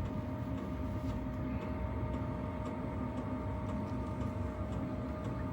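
Wood lathe running at a steady hum, with faint light ticks coming at a fairly regular pace.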